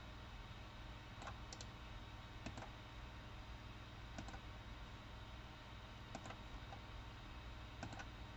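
Faint, sparse clicks of a computer mouse and keyboard, about eight, some coming in quick pairs like double-clicks, over a low steady hum.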